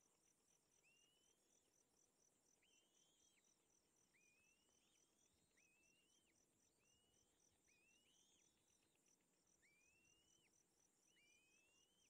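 Faint outdoor ambience: a steady, fast-pulsing high insect trill of crickets, with a bird giving about eight thin rising whistled calls, each ending in a sharp drop.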